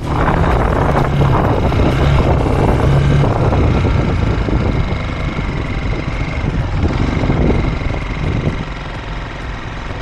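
Gatoma motorcycle's engine running as the bike pulls away and rides along a dirt road. It is loudest over the first few seconds and eases off after about five seconds.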